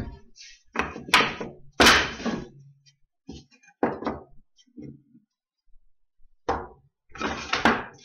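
Wooden boards of a beehive box being handled and set down on a wooden workbench while they are positioned for gluing: a series of separate knocks and thunks, the loudest about one to two seconds in.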